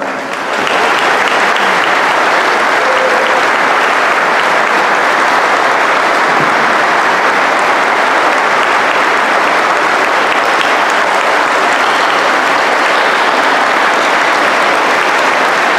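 A large audience applauding, swelling up in the first second and then holding steady.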